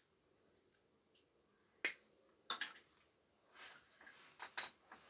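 Side cutters snipping the ends off thin battery wires: a few sharp, separate snaps.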